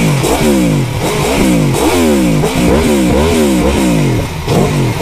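2018 Aprilia Tuono V4 1100 Factory's V4 engine, on its stock exhaust, revved in a series of quick throttle blips, each rising in pitch and falling back toward idle.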